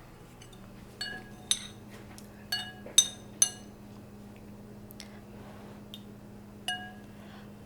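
A spoon clinking against a soup bowl about six times as the soup is tasted. Each clink rings briefly, and the loudest comes about three seconds in.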